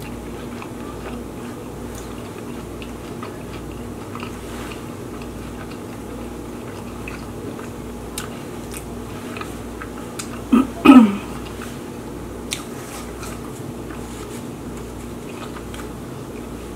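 Close-miked chewing and wet mouth sounds of people eating chicken tacos, with scattered faint clicks over a steady low hum. About eleven seconds in there is a brief voiced murmur, falling in pitch.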